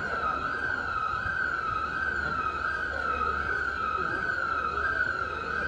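A high electronic alarm tone sounding continuously, its pitch wavering quickly a few times a second, over a low steady rumble.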